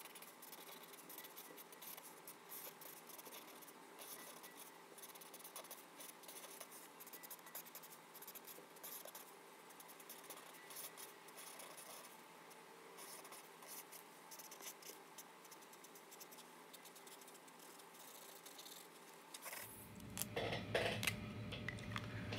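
Felt-tip marker strokes scratching faintly across the paper of a legal pad as block letters are drawn. Louder handling noises come in near the end.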